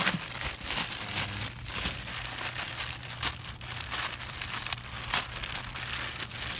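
Clear plastic wrapping crinkling and rustling continuously as a motorcycle rack sealed in it is handled inside a cardboard parts box.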